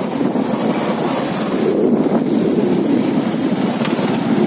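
Wind buffeting the microphone of a motorcycle moving at speed, a steady, loud rush, with the bike's running and road noise underneath.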